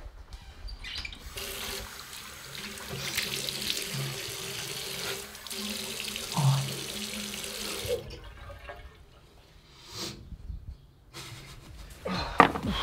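Bathroom sink tap running into the basin with water splashing, shut off about eight seconds in; a couple of short knocks follow.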